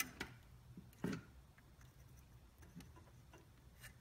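Quiet workbench with a few faint, scattered clicks and a soft knock about a second in: small handling noises as a soldering iron and wires are worked on a drone's circuit board.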